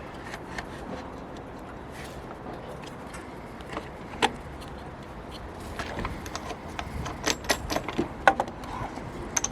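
Sharp clicks and knocks of a Makita DLS600 cordless mitre saw being adjusted by hand as its cutting angle is set back to 0 degrees, with a quick run of clicks near the end. The saw motor is not running.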